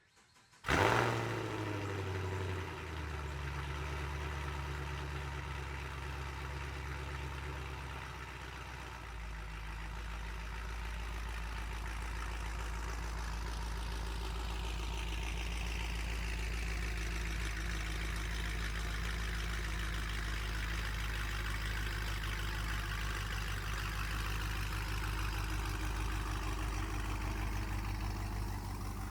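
Chevrolet Camaro SS's 6.2-litre V8 starting with a sharp burst, then idling; the idle steps down about two seconds in and again around eight seconds in as it settles, then runs steady.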